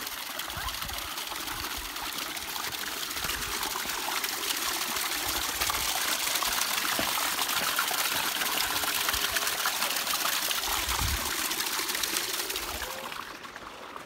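Water running and splashing over rocks at a waterfall, a steady rushing hiss that grows a little louder, then fades away near the end.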